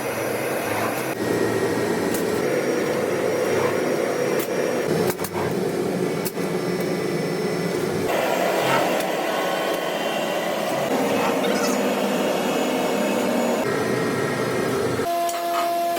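A motor-driven workshop machine or power tool running steadily with a noisy whir. Its note shifts a few times, and two short knocks come around the middle.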